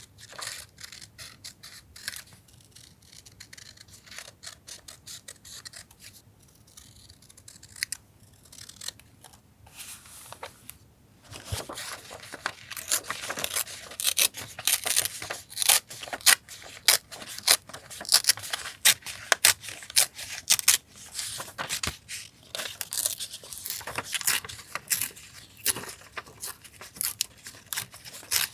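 Scissors cutting paper with many quick, crisp snips, along with paper being handled. The cutting is light and sparse at first, then becomes louder and busier about eleven seconds in.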